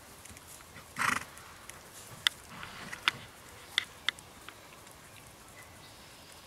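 A Quarter Horse/Paint cross gelding under saddle gives one short snort about a second in. A few sharp clicks follow over the next three seconds as it trots on grass.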